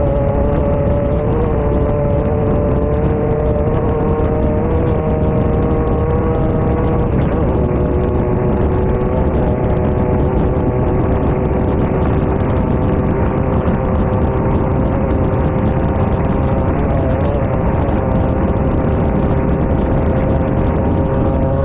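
Class 9 off-road race car's engine running hard at a nearly steady pitch, dipping slightly now and then, over a constant low rumble, heard from inside the car.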